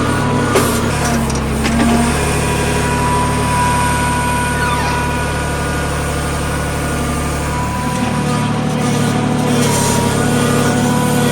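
Tractor diesel engine running steadily while powering a backhoe loader attachment digging and loading mud, with a couple of short knocks in the first two seconds. Its deep low rumble eases off about eight seconds in.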